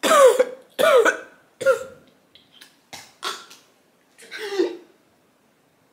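A woman making about six short gagging noises of disgust, each falling in pitch. The first three are the loudest.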